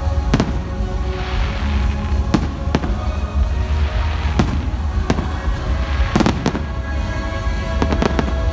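Aerial fireworks shells bursting overhead: a string of sharp bangs, single ones at first, then quick clusters of three about two-thirds of the way through and again near the end, with crackling hiss from the bursts between them. Show music plays underneath.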